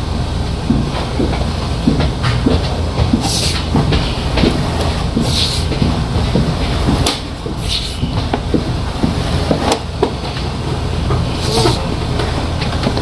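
Drain-cleaning equipment running: a steady low mechanical rumble with frequent small clicks and knocks, and a few short hissing bursts.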